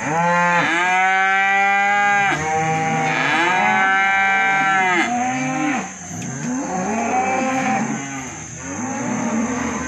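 Cattle crowded into a catch pen, bawling: two long, loud moos one after the other, then several quieter moos overlapping one another.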